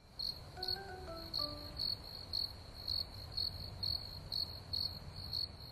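Crickets chirping: a steady high trill that pulses about twice a second. A short falling run of soft notes sounds about half a second in.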